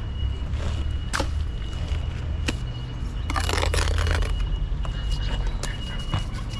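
A steady low engine-like rumble of running machinery, with scattered sharp knocks and a noisy scraping stretch about three and a half seconds in.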